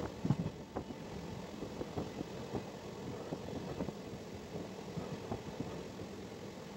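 Passenger train coach running along the track: a steady rumble of wheels on rails with irregular clacks and knocks, the loudest ones in the first second.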